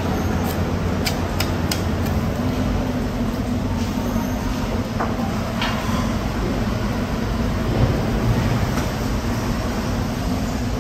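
Steady low mechanical rumble, with a few sharp clicks in the first two seconds.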